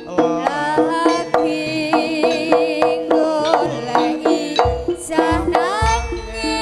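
Live jaranan music: hand drums beat a quick, regular rhythm under a pitched melody that wavers and slides upward in places, with deep low strokes about two-thirds of the way through.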